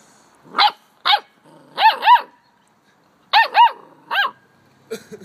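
A puppy giving about seven short, high-pitched barks, some in quick pairs, each one rising and falling in pitch.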